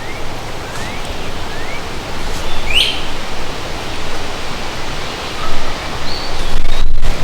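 Strong wind rushing over the microphone, with small bird chirps on top: two short rising chirps in the first two seconds and a louder sweeping call about three seconds in.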